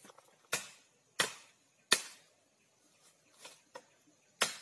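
Bamboo being chopped with a large blade: three sharp strikes in the first two seconds, two faint knocks, then a fourth strike near the end.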